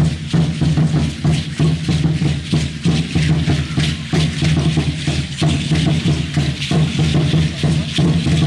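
Aztec dance music: a drum beaten in a fast, steady beat, with the shaking of the dancers' seed-pod ankle rattles (ayoyotes) on every step.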